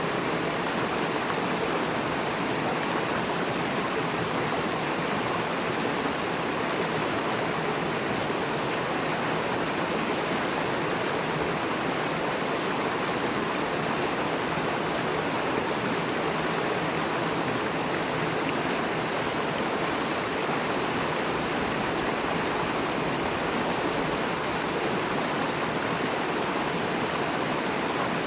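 River water rushing swiftly over and between rocks, a steady, unbroken splashing rush.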